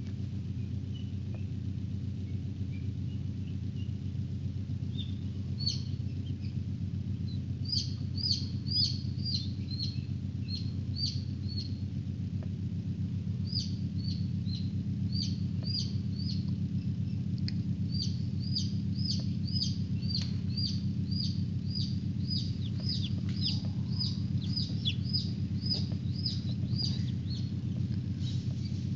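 Newly hatching chicken chicks peeping: series of short, high, falling peeps, a few a second, starting about five seconds in and running on in bursts, over a steady low hum.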